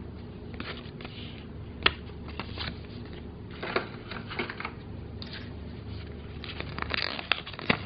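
Play paper banknotes being handled: soft rustling with a few sharp clicks, busiest near the end, over a steady low hum.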